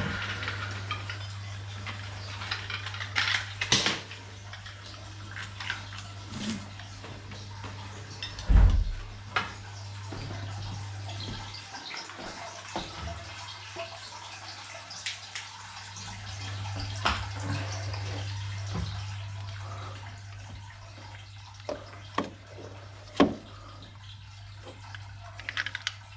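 Water running with a steady low hum, and scattered knocks and clinks on top, the loudest about a third of the way in and again near the end.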